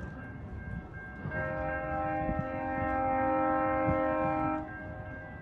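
GO Transit commuter train's horn sounding one long chord of several notes for about three seconds, starting about a second in, over a steady low rumble.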